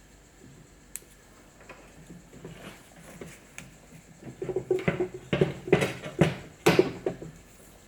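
Motorcycle fork parts and hand tools being handled: a single click about a second in, then from about halfway a quick run of metallic clinks, knocks and scrapes.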